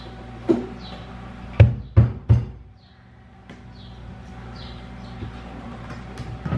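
Kitchen drawer knocking as it is tugged and pushed while a stick-on child-safety latch is fitted and tested, four sharp knocks in quick succession in the first two and a half seconds, then quiet handling.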